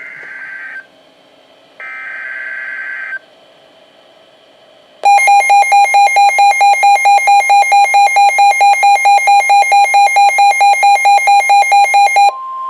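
NOAA Weather Radio alert sequence for a severe thunderstorm warning. It opens with two short buzzy warbling data bursts, the SAME header that triggers the receiver. A couple of seconds later the Midland WR120B weather radio's alarm sounds: a loud, rapidly pulsing beep, about four or five pulses a second, for some seven seconds. Near the end it switches to the broadcast's steady warning alarm tone.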